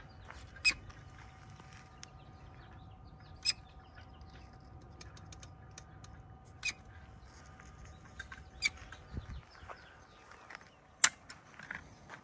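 Hand-squeezed cartridge dispensing gun clicking sharply each time its trigger is pumped, about five times, two to three seconds apart, as adhesive is pushed through the mixing nozzle into a concrete block. A faint steady tone and a low rumble sit underneath.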